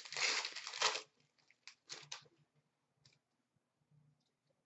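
Wrapper of an Upper Deck SP Authentic hockey card pack crinkling as it is torn open for about a second, followed by a few short rustles of the cards being handled.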